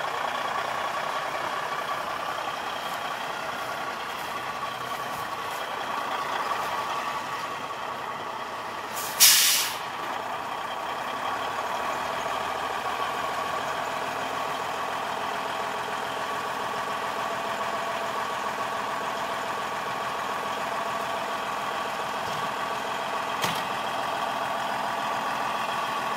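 Diesel semi truck engine idling steadily. About nine seconds in there is one loud, short hiss of air from the truck's air brakes, and a much smaller puff near the end.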